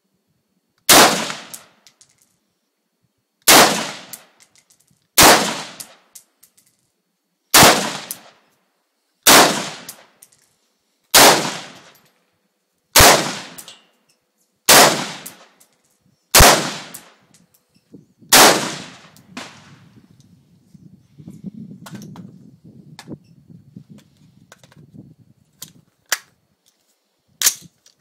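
AR-15 rifle fired in slow semi-automatic shots: ten loud, sharp reports about two seconds apart, each with a short ringing tail. After a pause there is low rumbling, then a couple of fainter sharp cracks near the end.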